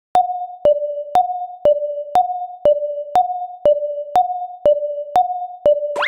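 Japanese railroad crossing alarm sounding its electronic two-tone ding, about two strikes a second alternating between a higher and a lower pitch, each ringing briefly. Near the end a quick rising slide sweeps up over it.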